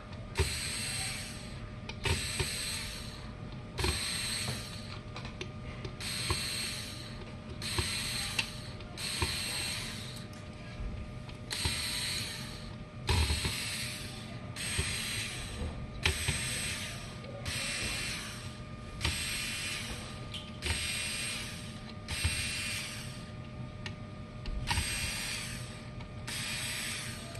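A mechanism ratcheting or whirring in short regular bursts, about one every second and a half, some starting with a knock, over a steady hum.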